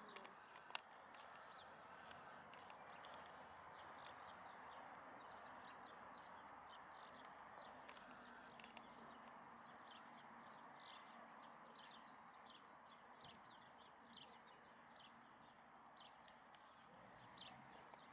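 Faint outdoor ambience: small birds calling with many short, high, downward chirps over a steady low hiss, with one sharp click about a second in.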